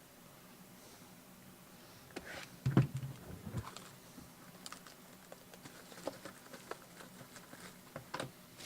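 Trading card boxes and packs being handled and opened by hand: scattered light clicks and taps of cardboard and wrapper, with a short run of louder knocks about three seconds in.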